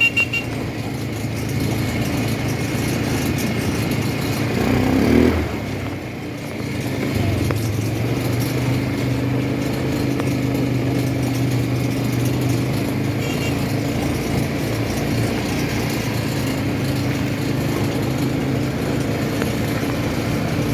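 ATV engine running steadily under way. About five seconds in, the revs rise briefly, then drop back and settle.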